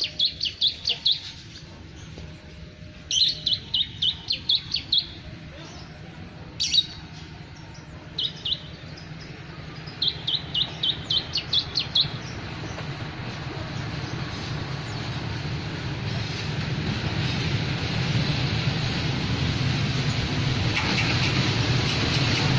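A songbird sings runs of quick high chirps, repeated every couple of seconds through the first half; these are the loudest sounds. Under them, the low rumble of an approaching diesel locomotive and its passenger train grows steadily louder through the second half.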